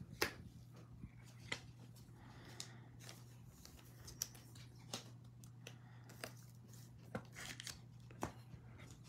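Faint, scattered clicks and crinkles of foil trading-card packs being handled, the sharpest one just after the start as the stack of packs is set down on the table, over a low steady hum.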